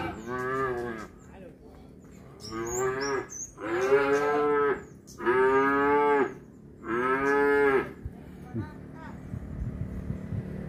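Cattle mooing: a string of about five high, drawn-out calls, each a second or less long, in quick succession over the first eight seconds. Near the end it goes quieter, with a few small knocks.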